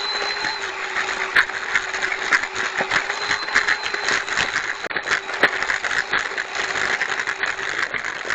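Electric ducted-fan motor of a Habu STS RC jet running at a steady whine, cutting off near the end, over a run of irregular clicks and crackles.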